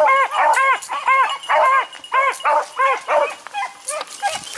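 Beagle baying while trailing a rabbit by scent: a rapid run of short barks that rise and fall in pitch, about two or three a second, thinning out and getting quieter near the end.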